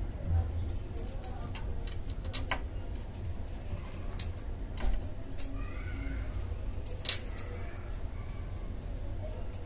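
Scattered sharp clicks and taps of a small screwdriver and screws against the panel of a mini amplifier board as the panel is screwed on, over a low steady rumble.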